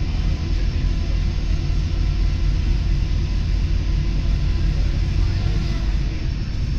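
Train running at speed, heard from inside the carriage: a steady low rumble with an even hiss of running noise over it.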